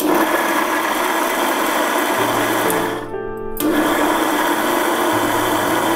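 Electric mixer grinder with a small chutney jar running at full speed, grinding a wet coconut and peanut chutney. It cuts out for about half a second around three seconds in, then runs again.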